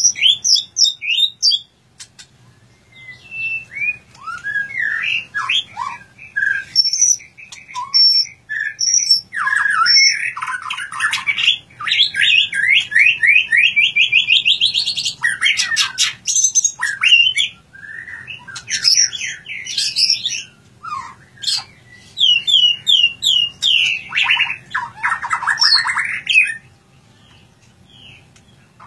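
White-rumped shama (murai batu) singing a long, varied song of clear whistles and chirps, with runs of fast repeated notes, broken by short pauses near the start and near the end.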